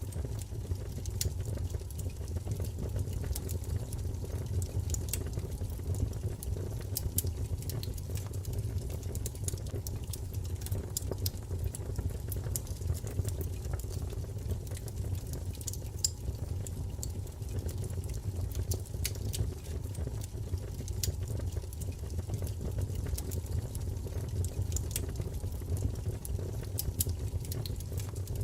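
Wood fire burning in a fireplace: irregular crackles and sharp pops over a steady low rumble of the flames.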